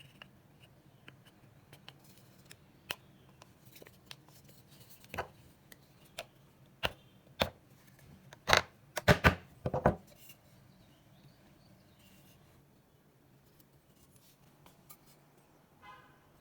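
Sharp knocks and taps of woodworking by hand, wood and tools striking: a few light clicks, then a run of louder separate knocks in the middle, the loudest coming in quick succession, before it goes quiet again.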